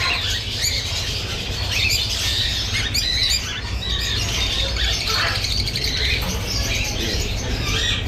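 Caged birds chattering, lutino peach-faced lovebirds among them: many shrill chirps and squawks overlapping without pause, over a steady low hum.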